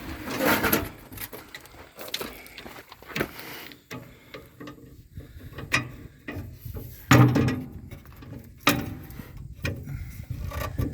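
A jack being set in place under a truck cab: irregular metal clanks, knocks and scraping, with a louder clank about seven seconds in and another near nine seconds.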